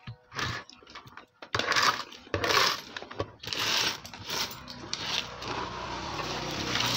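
Small loose metal parts, transistors and scraps, clinking and rattling on a workbench as a hand rummages through them, in irregular bursts of clatter.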